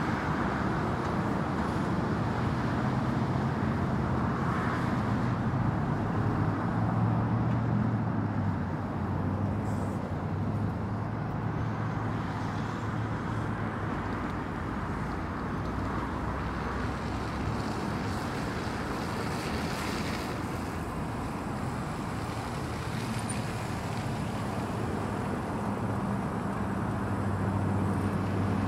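Steady road traffic on a busy highway, a continuous rush of passing vehicles. Heavier engine hum swells a few seconds in and again near the end.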